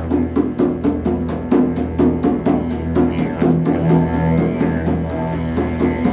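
A didgeridoo drone with a drum beating a fast, even rhythm over it, about four or five strikes a second.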